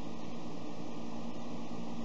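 Steady, even background hiss with a faint low hum; no distinct clicks or knocks from the small carburetor parts being handled.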